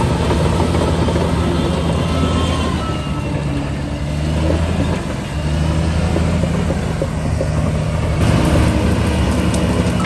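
Shantui DH17 bulldozer's diesel engine running under load as it pushes mud. The engine note drops for a couple of seconds partway through, then picks back up.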